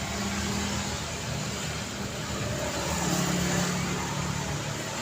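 City street traffic: a steady wash of passing cars, with engine hum and tyre noise that swells slightly about three seconds in.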